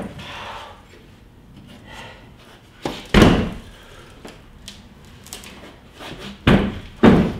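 Heavy knocks and thuds as a Humvee radiator assembly is shifted and set down on a concrete floor: one loud knock about three seconds in and two more near the end, with softer scraping between.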